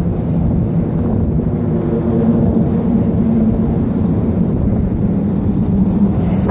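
Steady low rumble of wind buffeting the microphone, mixed with traffic on a steel truss bridge whose tyres give a faint hum on the steel-grate deck.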